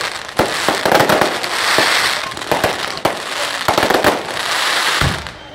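Aerial fireworks going off: a quick run of bangs with crackling between them, dying down near the end.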